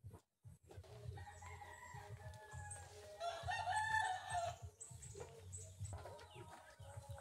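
A rooster crowing, one long call that swells to its loudest in the middle.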